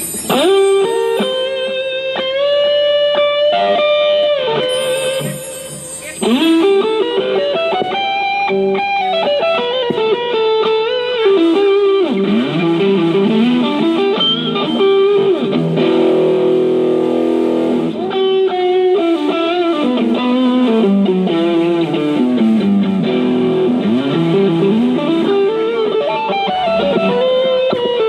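Electric guitar playing a slow melody with frequent pitch bends and slides.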